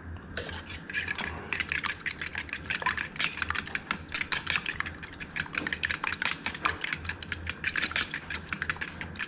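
A metal fork clicking rapidly against a bowl while beating egg wash (eggs, milk and adobo seasoning), several strokes a second; the clicking starts about half a second in.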